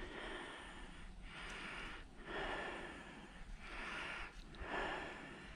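A person's breathing close to the microphone: slow, even breaths in and out, about four of them.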